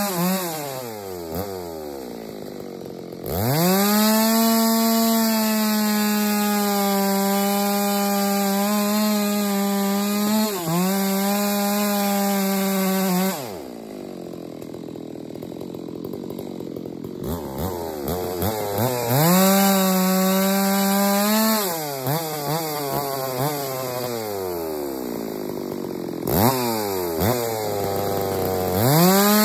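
Ported big-bore chainsaw bucking firewood. The engine winds down at first, then revs to full throttle and holds there for about ten seconds with one brief dip. It drops to idle for several seconds, then revs up again and runs lower for a few seconds before revving sharply twice near the end.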